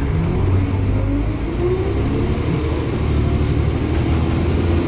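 Volvo B10BLE bus's diesel engine pulling under load on a hill climb, heard from inside the saloon: a steady low drone with a higher whine that rises, dips about two seconds in, and rises again.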